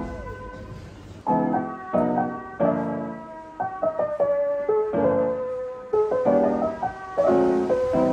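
Background piano music: a light melody over chords, each struck sharply and left to fade.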